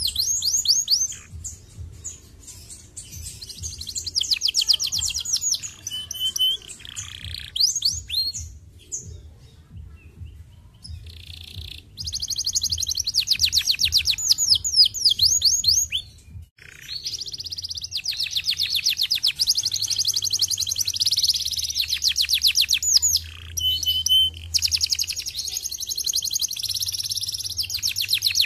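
Domestic canary singing: long fast trills of rapidly repeated high notes, broken by short pauses, with a couple of brief held whistled notes, over a steady low hum.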